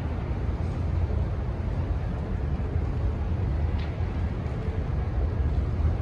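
Steady low rumble of city street traffic, with a faint short high-pitched squeak about four seconds in.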